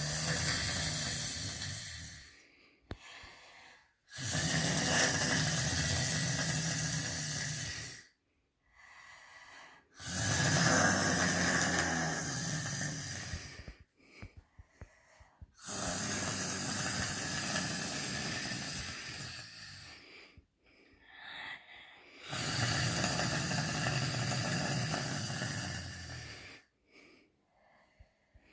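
A woman snoring: five long snores of about four seconds each, coming about every six seconds with short quiet gaps between breaths.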